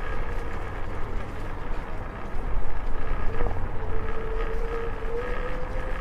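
Electric scooter riding along a street: a low, steady rumble from the wheels and wind, with a thin motor whine that rises slightly in pitch near the end.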